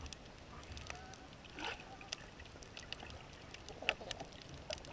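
Underwater ambience heard through a submerged action camera's housing: many scattered sharp clicks and crackles over a low rumble, with a couple of short wavering squeaks about a second and a half and about four seconds in.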